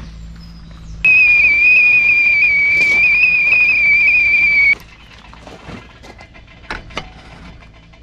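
Whistling kettle at the boil: one steady, loud, high whistle of about four seconds that starts about a second in and cuts off suddenly.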